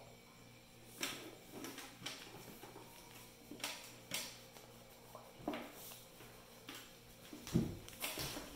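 Crayon scratching on spiral-notebook paper in short, scattered strokes, with a low thump against the wooden table near the end.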